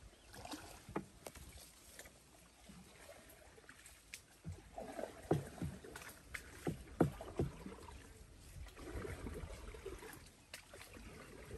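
A single-bladed paddle stroking through the water beside a small wooden boat, with irregular splashes and knocks. The sharpest run of these comes about five to seven and a half seconds in.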